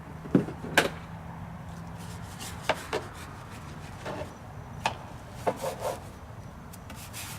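A scrub brush working over a minibike, with irregular scraping strokes and sharp knocks of the brush against the metal; the two loudest knocks come less than a second in.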